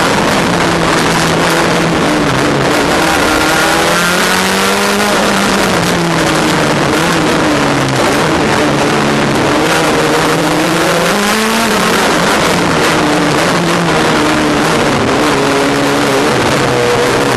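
Race car engine heard from inside the cockpit, running hard under race load over loud road and wind noise. Its revs climb and fall repeatedly, with a sharp drop a little past halfway.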